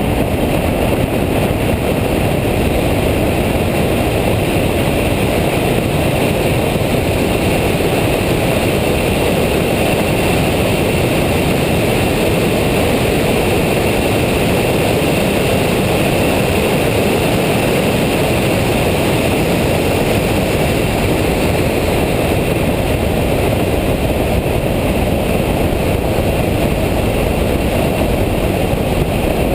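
Loud, steady noise of a Nissan Nismo track car at speed heard from inside the cabin, engine, wind and tyre noise blended together with no clear changes in engine pitch.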